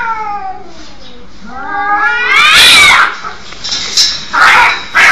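Cats caterwauling. A long drawn-out wail slides down in pitch over the first second or so. A second yowl rises and then falls about two seconds in, and harsh, rasping screeches follow near the end.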